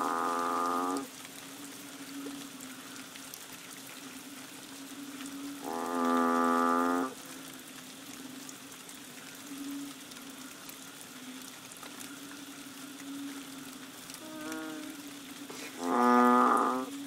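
Banded bullfrogs calling: separate low, moo-like calls about a second long each, one ending about a second in, another about six seconds in, a faint short one and then the loudest near the end. A steady low drone runs underneath between the calls.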